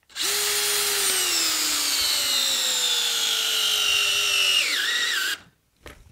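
Craftsman brushless hammer drill in drill mode on speed 1, driving a 1/4-inch by 4-inch lag screw into wood. The motor whine falls steadily in pitch as the screw sinks and the load grows, dips sharply near the end and then cuts off after about five seconds.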